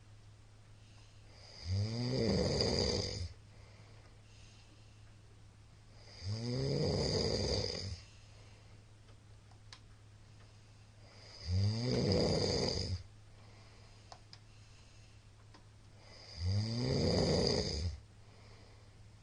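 A middle-aged man snoring loudly in deep sleep: four long snores about five seconds apart, each rising in pitch as it begins, with a hissy rasp.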